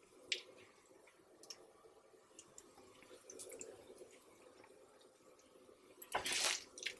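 Chopped ground beef sizzling faintly on a flat-top griddle, with scattered small pops and crackles of fat. About six seconds in, a louder half-second rush of noise cuts in.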